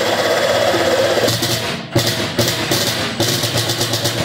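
Cordless drill boring through the steel side panel of a pellet smoker: the motor runs steadily at first, then in a string of short trigger bursts of about half a second each, stopping near the end.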